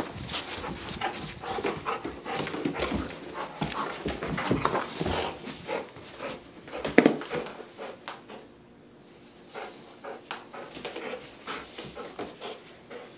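Golden retriever panting while tugging and shaking a plush sheep toy in a tug of war, with one loud sudden sound about seven seconds in.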